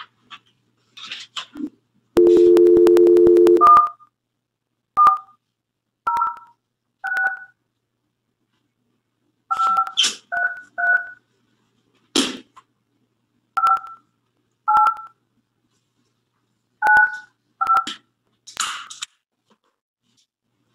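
Telephone dial tone for about a second and a half, then a number dialed on a touch-tone keypad: eleven short two-note beeps tapped out unevenly. A few soft clicks and knocks fall between the beeps.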